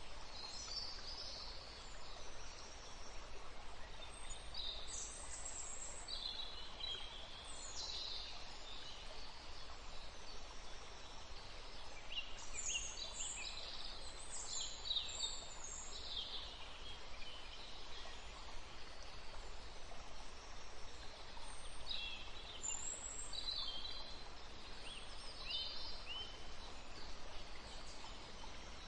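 Hot oil sizzling in a frying pan as dried red chillies and sliced onions fry, a steady hiss with scattered crackles and spatters.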